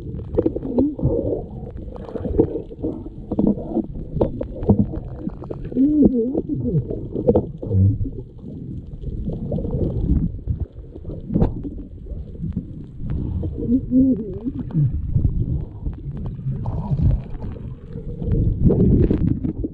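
Muffled underwater rumble from an action camera in its waterproof housing: water rushing and knocking against the case, with a few short wavering low tones. A louder hissing rush comes near the end.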